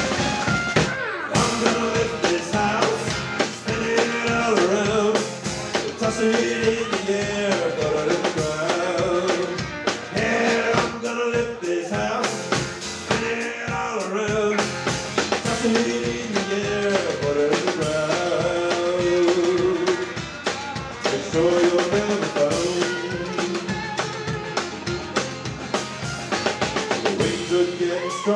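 Live country band playing: a drum kit with snare and bass drum keeping the beat under acoustic and electric guitars, with a melody line that bends up and down.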